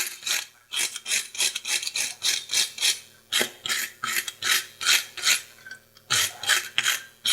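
Brush scrubbing the steel tongs in quick back-and-forth strokes, about three a second, with two brief pauses.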